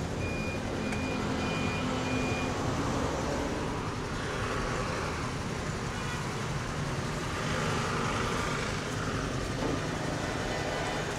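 Steady engine and road-traffic noise that swells twice as vehicles pass, about four and about eight seconds in. A run of short, evenly spaced electronic beeps at one pitch sounds over it for the first couple of seconds.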